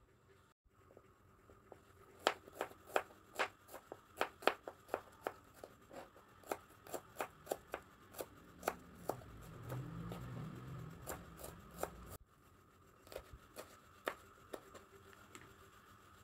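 Kitchen knife slicing shallots, garlic and chillies on a plastic cutting board: a run of quick, sharp taps, about three a second, then after a short break a few more taps.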